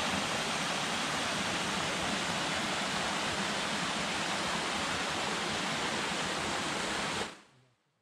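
Stream cascading over rocks in small waterfalls: a steady rush of water that fades out quickly about seven seconds in.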